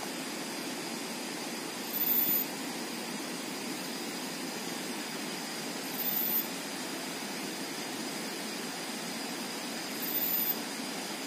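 Steady rushing of a flowing river. A faint, steady high whine runs under it, and a short high chirp comes three times, about four seconds apart.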